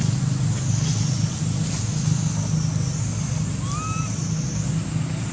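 Steady low engine rumble of a motor vehicle running nearby, with a faint high hiss above it and one short high call about four seconds in.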